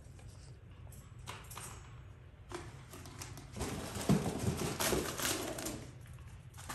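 Pomeranian puppies scuffling and play-fighting on a tile floor, claws clicking and pattering. The scuffle gets louder and busier about three and a half seconds in.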